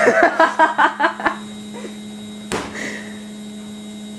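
A ball of pizza dough slammed down onto a kitchen worktop: one heavy thud about two and a half seconds in, over a steady electrical hum. A voice is heard in the first second or so.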